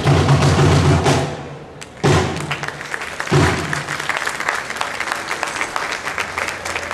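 Drum-heavy music for an Aztec-style dance stops about a second in, two heavy thumps follow, and the audience applauds.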